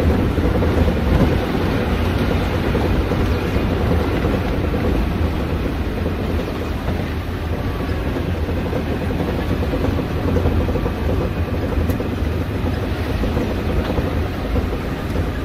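Vehicle driving along a gravel road: steady engine and tyre noise, with wind on the microphone.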